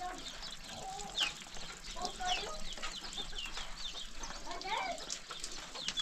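Chickens clucking, with many short, high, falling chirps all through.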